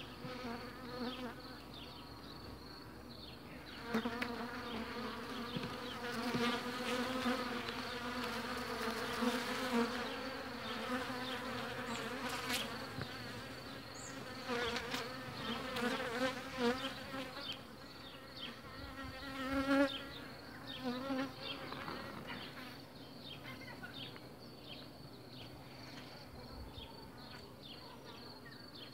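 Honey bees buzzing in a dense, wavering hum over an open hive, swelling louder through the middle stretch and easing off near the end. The colony is agitated and is being worked without smoke.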